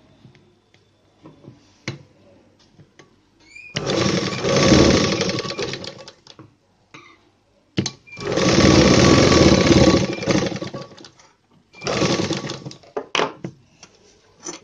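Electric sewing machine stitching a blouse's shoulder seam in three runs: a long run, a second long run and a shorter third. Small clicks and taps between the runs.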